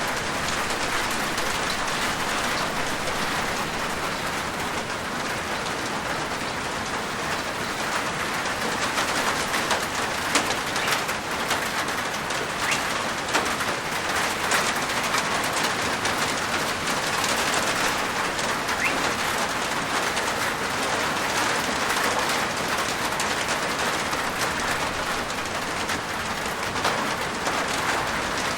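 Steady rain falling on a rooftop, an even hiss of rain with many individual drops pattering sharply on the surface.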